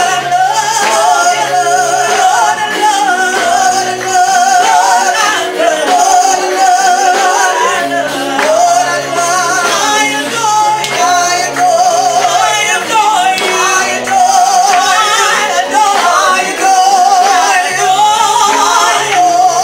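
Music with a singing voice: a melody sung with a strong, wavering vibrato over held low notes.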